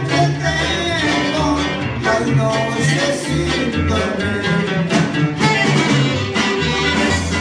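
Live band playing regional northern Mexican dance music with a steady beat.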